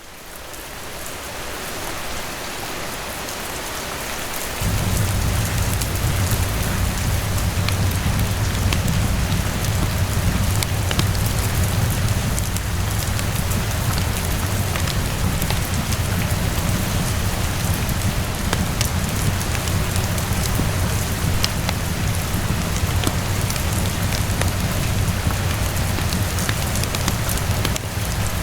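Steady rain with scattered sharp ticks, fading in at the start. About four and a half seconds in, a low steady rumble joins and holds.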